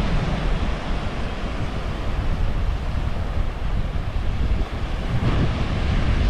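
Wind buffeting the microphone over small surf breaking and washing up a sandy beach. The wash grows a little louder about five seconds in.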